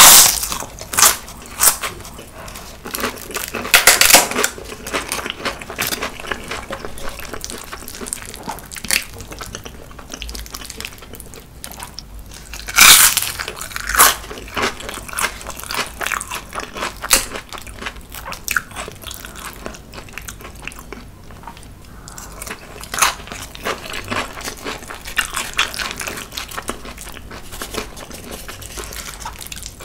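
Close-miked eating: crisp crunches of biting and chewing fried seaweed chips (gimbugak), with softer chewing and mouth sounds between. The crunches come every second or few seconds, loudest right at the start and again about 13 seconds in.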